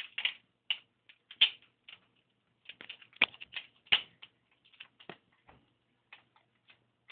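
Cockatiel pecking at and knocking the small plastic pieces of a travel backgammon set around its case: irregular sharp clicks and taps, a few louder knocks among lighter ticks.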